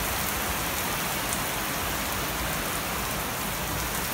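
Heavy rain pouring down onto pavement and standing water, a dense steady hiss.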